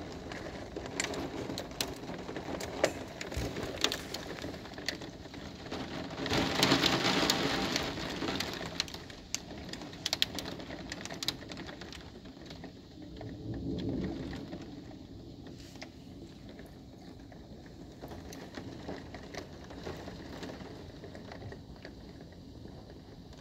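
Heavy thunderstorm rain pouring down steadily, with many sharp ticks of drops striking close by. About a quarter of the way in, the downpour surges loudly for a few seconds, and a lower swell rises briefly about halfway through.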